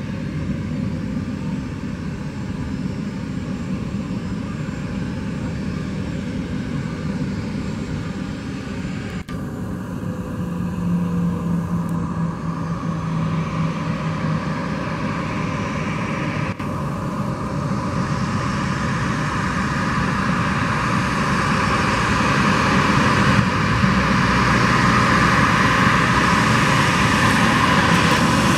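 Boeing 737-700's CFM56-7B jet engines running at taxi power, a steady jet whine that grows louder through the second half.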